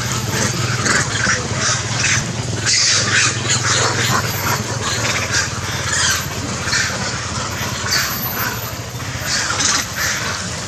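Outdoor animal chorus: many short, high calls in quick succession, over a steady low hum.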